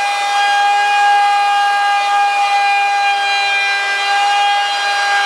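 Wood router running with a flush-trim bit to trim an MDF panel down: a loud, steady high whine with no change in pitch.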